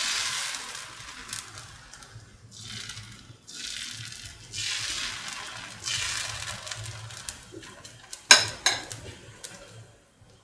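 Steel ladle spreading semolina dosa batter in circles on a hot pan: repeated hissing sweeps of the ladle scraping through sizzling batter. Two sharp clicks near the end.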